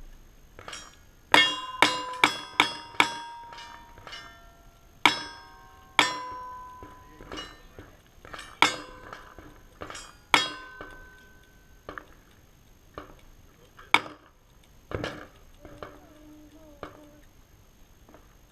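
Gunshots in a cowboy action shooting stage, most followed by the ring of a struck steel plate target. A fast string of five shots opens, then slower shots spaced a second or more apart, with quieter shots near the end.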